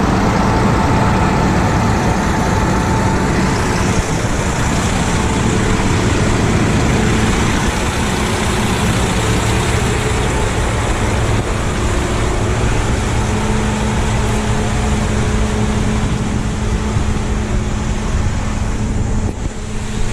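A large engine running steadily at an even speed.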